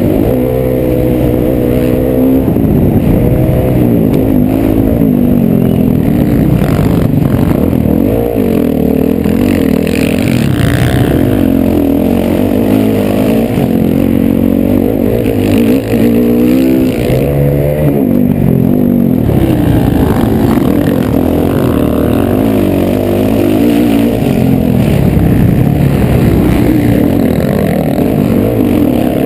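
Motocross bike engine revving hard and dropping back over and over, its pitch climbing and falling as the rider works through the gears on a race track, heard up close from a helmet-mounted camera.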